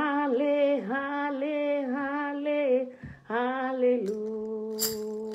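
A woman singing a slow worship chorus unaccompanied, drawing out long held notes with gentle bends. Near the end, while she holds a steady note, a tambourine starts to jingle.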